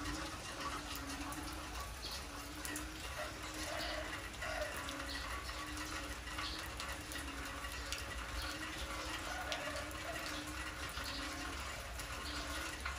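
Heavy rain falling steadily, with the even hiss of water splashing on the yard. A faint low note repeats over and over underneath.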